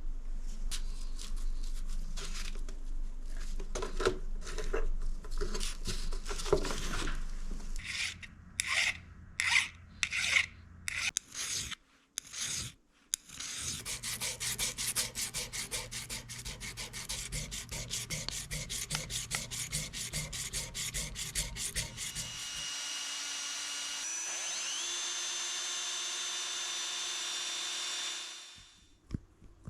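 Hand filing or rasping strokes, scraping back and forth, in irregular runs and then a fast even run. Later a steady whine of a running machine holds for several seconds, stepping up in pitch once, before it stops.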